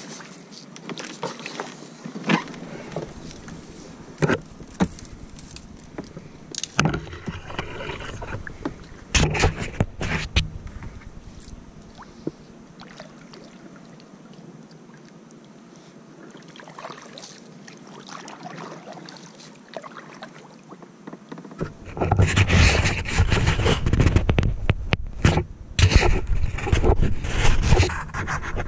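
Kayak paddling through a flooded, brushy swamp: paddle splashes and strokes, with sharp knocks now and then against the hull or paddle. About three quarters of the way through it turns much louder and rougher, with a low rumble over the splashing.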